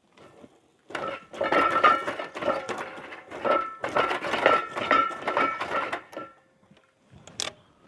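Fence-wire ratchet strainer being worked to tighten barbed wire: a run of rapid metallic clicks with a ringing metal tone, lasting about five seconds. It stops, and a single sharp metal knock follows shortly after.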